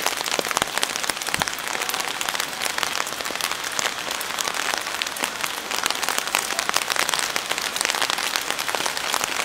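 Steady rain falling, with a dense patter of individual drops.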